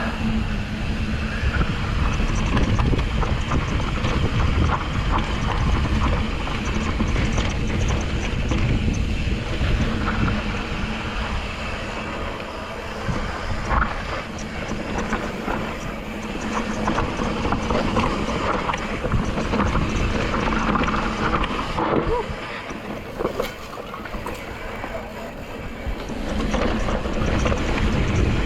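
Wind buffeting the microphone while a YT Decoy mountain bike is ridden down a rocky singletrack, its tyres rolling over dirt and rock and the bike rattling, with a few sharp knocks from hits on rocks.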